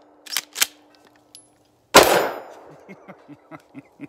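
PAS-12 pump-action shotgun: two quick metallic clacks as the pump is worked, then a single loud shot fired from the hip about two seconds in, the blast dying away over about a second. A run of short, soft pulses follows, about four a second.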